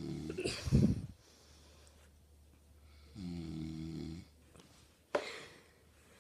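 A man snoring in an odd pattern: a pitched, droning snore lasting about a second, each followed by a sudden noisy rush of breath. It happens twice, and the first rush of breath, about a second in, is the loudest.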